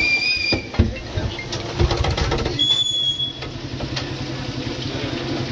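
Potato fries frying in a deep fryer, the oil sizzling and crackling over a steady low hum. Two short, steady high tones sound, one right at the start and one about two and a half seconds in.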